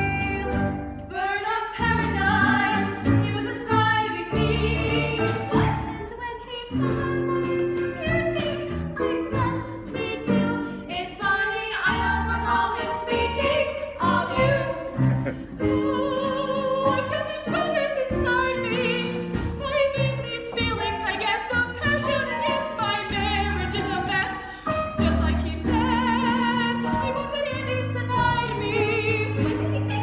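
Women singing a musical-theatre song in a trained, operatic style with vibrato, over instrumental accompaniment.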